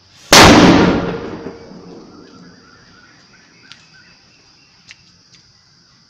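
A ball firecracker explodes with a single loud bang about a third of a second in, its echo dying away over a second or so.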